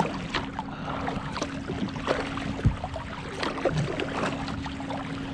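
Kayak paddle strokes splashing and dripping, with water lapping against the hull, over a steady low hum. A single low knock comes about two and a half seconds in.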